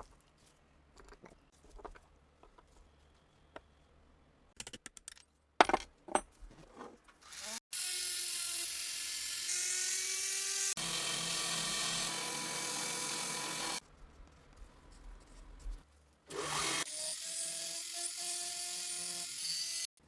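Small taps and clicks of tools on metal parts, then a small power tool running steadily in two stretches of several seconds each, its motor whine shifting slightly in pitch.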